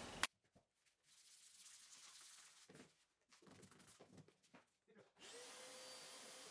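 Faint, irregular scraping strokes of a long hand sanding block with 80-grit paper working over body filler on a car door. About five seconds in, a steady faint hum of the block's dust extractor starts.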